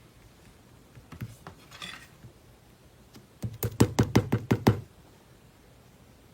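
Slime being pressed and poked by hand: a few soft clicks and a brief rustle, then a quick run of about eight sharp, sticky pops a little past the middle.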